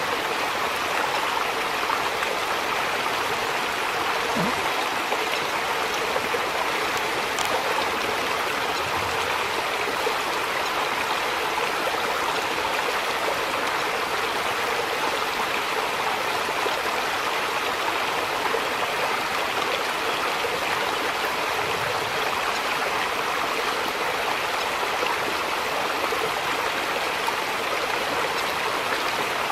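Steady rush of a fast-flowing stream.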